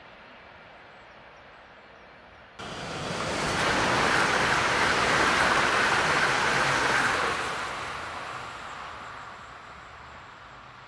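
ÖBB electric passenger train passing along the line, its wheels rolling on the rails with a rushing noise. The noise comes up suddenly about two and a half seconds in, is loudest for a few seconds, then fades as the train moves away round the curve.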